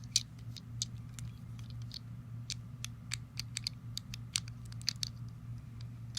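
Small plastic LEGO pieces clicking and tapping at irregular intervals as the LEGO vending machine is handled and worked. A steady low hum runs underneath.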